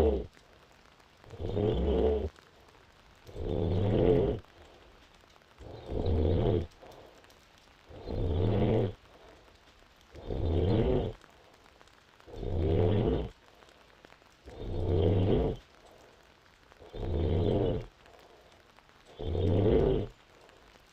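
A woman five months pregnant snoring in deep sleep: a rattling snore about a second long with each breath, repeating steadily about every two seconds, nine times.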